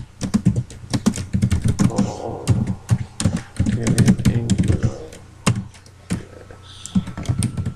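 Typing on a computer keyboard: quick runs of keystrokes, thinning to a few separate clicks in the last couple of seconds.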